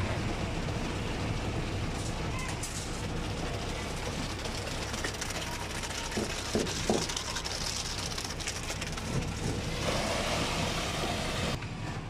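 Transit concrete mixer truck running with a steady diesel engine hum while wet concrete pours down its chute into a hopper. A louder rushing noise comes in about ten seconds in and cuts off suddenly near the end.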